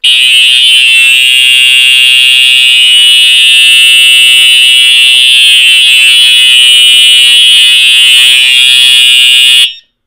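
Simplex TrueAlert electronic fire alarm horn sounding a steady, continuous alarm tone, loud and unbroken, cutting off abruptly near the end.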